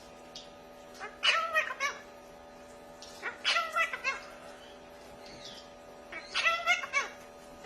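Three meowing calls, each under a second long with pauses of about a second and a half between them.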